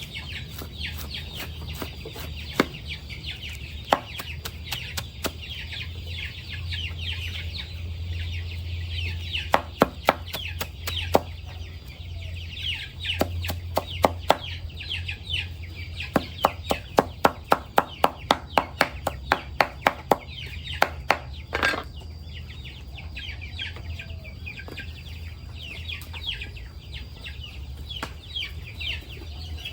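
A flock of chickens calling continuously in rapid, high, falling chirps, over a steady low hum. Sharp taps come now and then, then in a quick run of about three a second for several seconds past the middle.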